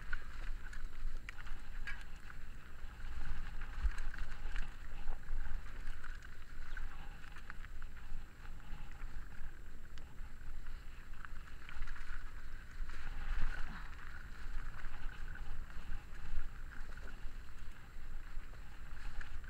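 Mountain bike riding fast down a gravel trail, heard from the rider's own bike: tyre noise on loose stones with frequent small clicks and knocks of the frame and chain rattling, over a constant low rumble of wind on the microphone.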